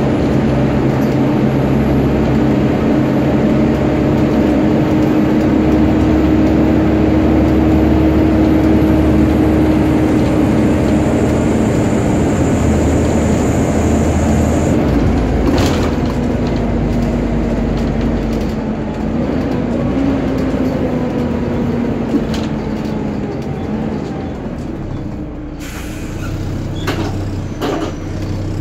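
Volvo B7TL double-decker bus heard from inside on the move: an engine rumble under a steady vacuum-cleaner-like whine from its engine cooling fan. About halfway through the whine drops in pitch and fades away, and a couple of brief hisses come near the middle and near the end.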